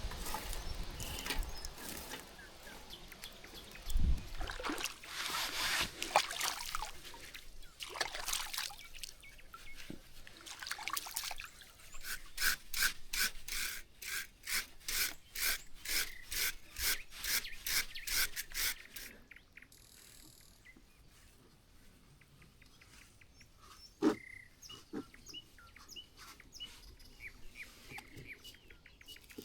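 Rhythmic scraping or rubbing strokes, about three to four a second for several seconds in the middle, after some irregular scraping, with a single sharp knock later on.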